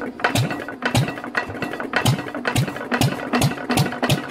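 Old flywheel stationary engine that has just caught after being turned over by hand, running slowly under its own power with an even chuff about two and a half times a second that quickens slightly as it picks up speed.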